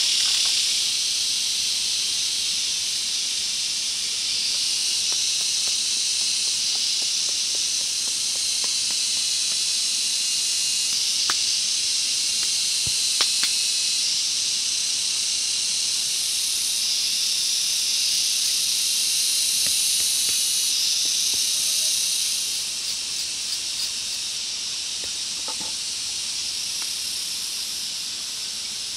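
Dense chorus of forest insects, a steady high shrill hiss, with a few faint clicks around the middle.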